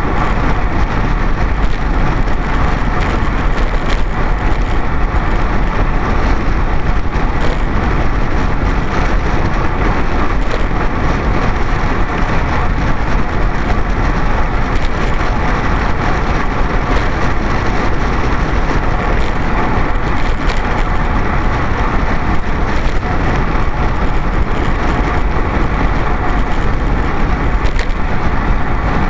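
Wind and road noise on a camera carried on a racing bicycle moving at speed on asphalt: a steady, loud rush with a fine rattle and no change throughout.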